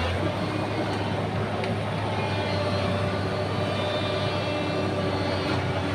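Excavator's diesel engine running steadily, a low drone with a fainter whine above it.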